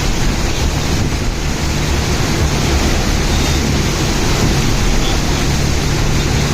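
A steady rush of noise over a low, even engine hum.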